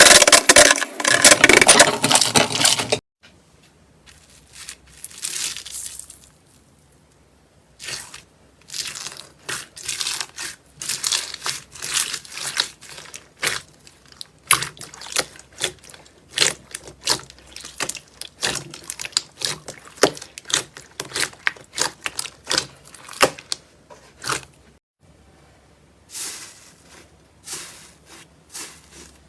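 Slime being handled: irregular runs of short crackling, squishing pops as it is pressed and stretched. A louder, continuous crackle at the start cuts off abruptly about three seconds in.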